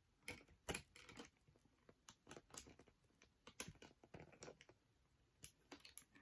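Faint, irregular clicking and crinkling of plastic toy packaging being handled as a small doll shoe is worked out of it, with a short lull near the end.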